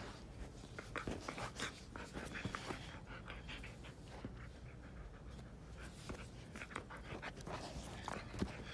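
Husky panting close up during rough play, with irregular short clicks and scuffs of mouthing and fur rubbing against the phone.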